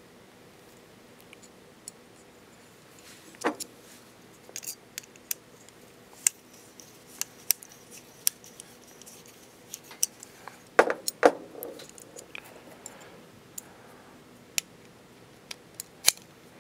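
Scattered sharp clicks and ticks of small metal screws, clamps and a hex screwdriver being handled and turned while gimbal parts are screwed together, with a louder cluster of clacks about eleven seconds in.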